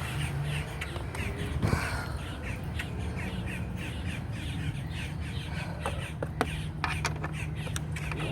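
A bird gives a rapid run of crow-like cawing calls, about three a second, over a steady low hum, with a few sharp metallic clicks near the end.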